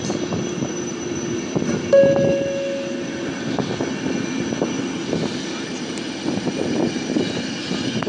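Passenger train coaches rolling slowly past and pulling away, wheels running over the rails with repeated clicks. A short squeal about two seconds in.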